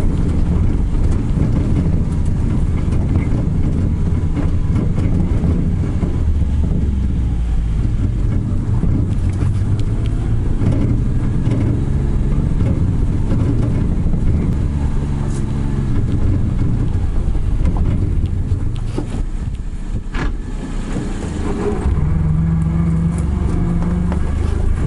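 Engine of a small vehicle running at low speed over a bumpy dirt track, with rattles and knocks from its cargo bed and the steel cage wheels loaded on it. The engine note dips briefly near the end, then settles on a steadier pitch.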